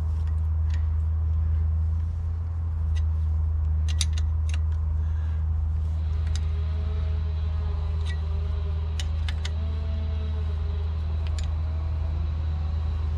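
Scattered light metallic clicks and ticks of a wrench working the screw of a bearing puller on a cast-iron drill-press hand wheel, over a steady low hum.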